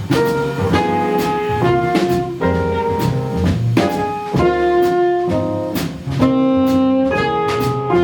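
Live jazz band playing: a saxophone carries a melody of held notes over double bass and a drum kit with regular cymbal strokes.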